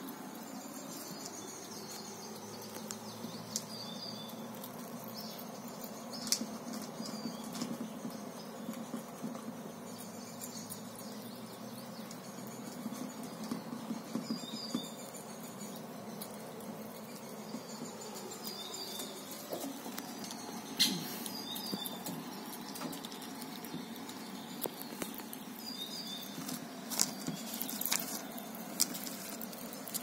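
Eurasian red squirrel feeding on nuts, with scattered sharp clicks and crunches as it handles and eats them. Faint short bird chirps come every few seconds over a steady low background hum.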